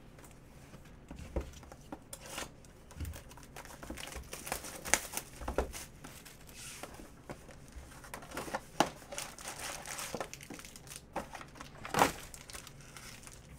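A Panini Prizm baseball hobby box being opened and its foil card packs taken out and handled: irregular crinkling and tearing with sharp crackles, the loudest about three-quarters of the way in and near the end.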